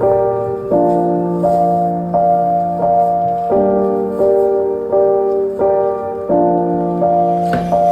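Background music: a piano-like keyboard playing steady chords that change about every two-thirds of a second.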